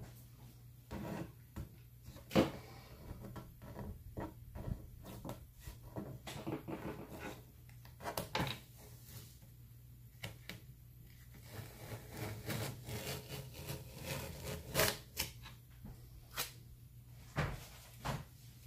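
Irregular small knocks, clicks and rubbing of things being handled and set down on a hard surface, with a steady low electrical hum underneath.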